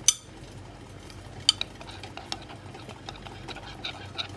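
Metal wire whisk stirring melted white chocolate in a glass measuring jug, mixing in light blue gel colour. The wires tick and clink irregularly against the glass, with two sharper clinks: one right at the start and one about a second and a half in.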